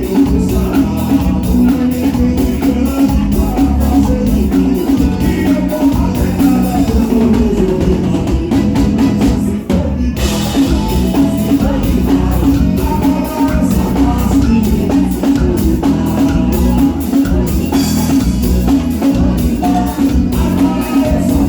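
Live forró band playing, with singing over a steady, even drum beat; the music drops out for a moment about ten seconds in, then carries on.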